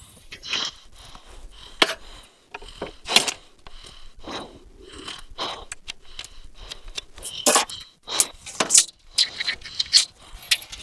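Scattered scrapes, clicks and rattles from measuring and marking pressure-treated pine decking boards with a tape measure and pencil.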